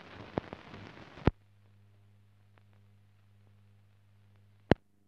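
Surface noise of an old film soundtrack with no recorded sound: hiss and crackle, cut off by a loud pop about a second in, then a low steady hum with faint ticks and another loud pop near the end.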